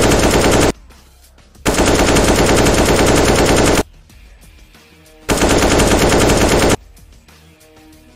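Machine-gun fire sound effect in three bursts of rapid shots: the first cuts off under a second in, the second lasts about two seconds, the third about a second and a half, with quiet gaps between them.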